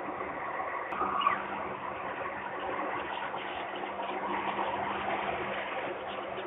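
Steady hum and hiss, with one short, falling peep about a second in from a peregrine falcon chick, either newly hatched or still calling from inside its shell under the brooding parent.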